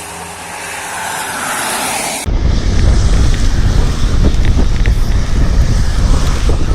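A steady hiss with a faint low hum. About two seconds in it cuts abruptly to loud wind buffeting the microphone, with small scattered rattles.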